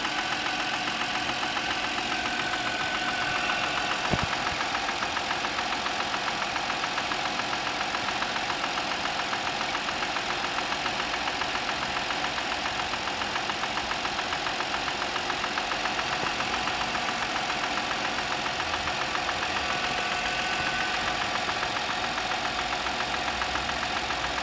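Audi A6 C6 engine idling with a regular knock in its running, the morning knock the owner is recording. A single sharp click about four seconds in.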